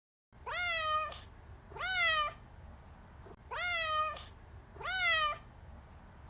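Domestic cat meowing four times, in two pairs of calls, each meow rising quickly in pitch and then holding and falling slightly.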